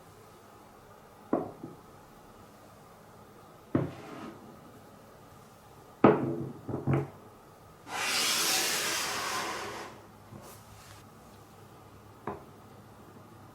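Glass marbles knocking against wooden Cuboro blocks in a marble run: single sharp clacks spaced a few seconds apart, a quick double knock about six to seven seconds in, and a steady two-second rush of a marble rolling through a wooden track from about eight seconds in.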